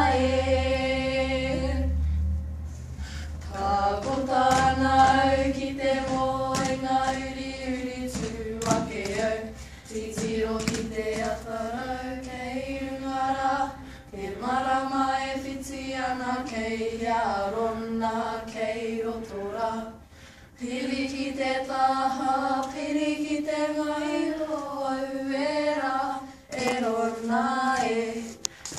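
A group of girls singing a Māori poi song in unison, unaccompanied, with short breaks between phrases. Sharp taps of the poi balls striking sound in time with the song.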